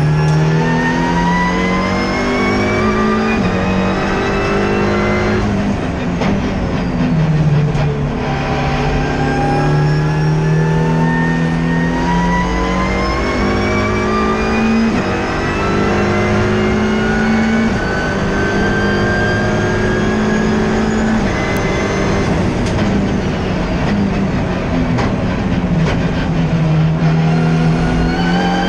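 Ford Fiesta race car's turbocharged EcoBoost engine, heard from inside the cabin, accelerating hard around the track. Its pitch climbs steadily through each gear and drops at each upshift, with several gear changes.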